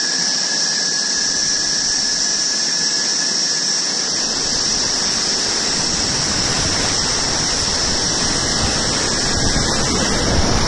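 Rushing whitewater of a flooded river heard from a kayak running rapids: a steady, loud rush with a strong high hiss, deeper churning joining in about four seconds in.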